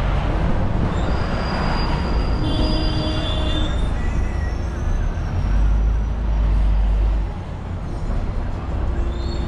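Road traffic noise: a heavy, steady low rumble, with several brief high-pitched squealing tones between about one and four seconds in.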